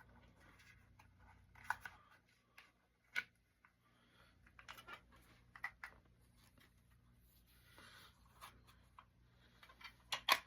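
Faint handling noises: scattered light clicks and soft rustles over a low room hum, with a louder click near the end.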